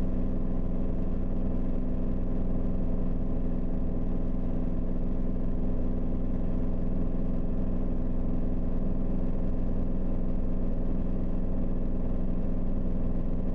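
Piper Warrior III's four-cylinder Lycoming engine and propeller droning steadily in cruise flight, heard from inside the cockpit; the pitch and level stay even throughout.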